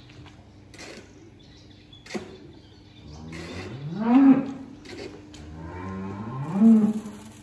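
A cow mooing twice: two long calls that rise in pitch and fall away, the second near the end. A sharp knock comes about two seconds in.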